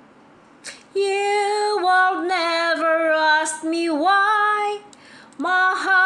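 A woman singing a slow love ballad solo, starting about a second in; she holds and bends long notes, breaks off briefly near the end, then sings on.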